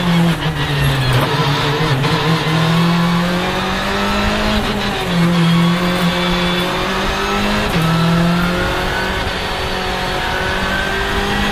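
Skoda Fabia R5 rally car's turbocharged 1.6-litre four-cylinder engine, heard from inside the cabin, pulling hard through the gears: the pitch climbs and drops back sharply at each of several quick gear changes. A few short sharp cracks come with the shifts.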